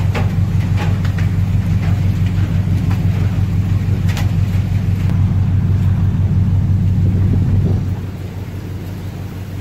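Storm on a ship's open deck: heavy rain and wind with a constant low rumble and hum underneath and a few sharp taps of things striking. About eight seconds in it drops to a quieter wash of rain and wind.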